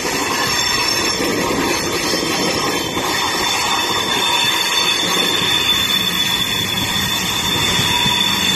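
Railway train moving slowly with its wheels squealing on the rails: a steady high-pitched squeal over the rolling rumble of the wheels, the squeal strongest in the second half.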